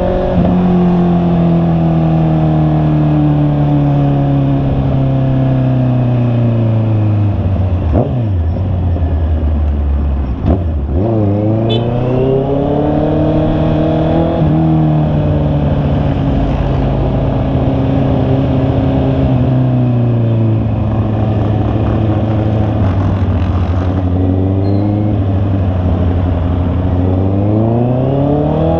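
Honda CB650R's inline-four engine heard from on board while riding, with wind and road noise. The engine pitch falls steadily for the first several seconds, dips sharply twice as the rider shifts gears, climbs again, sinks back to a steady cruise, and rises near the end as the bike accelerates.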